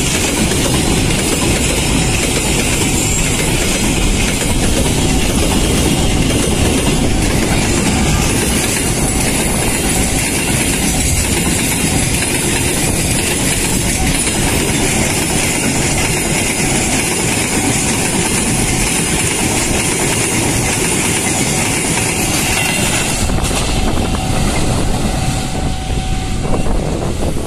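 Freight train of container flatcars rolling past close by, a steady loud rumble of wheels on the rails.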